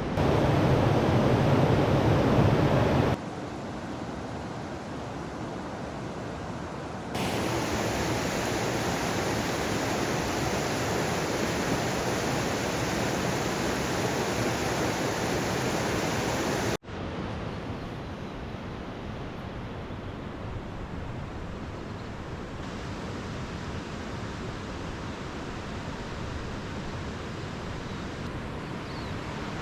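Rushing river water, a steady noise that jumps in level at each cut between shots. It is loudest in the first three seconds, and there is a brief dropout about seventeen seconds in.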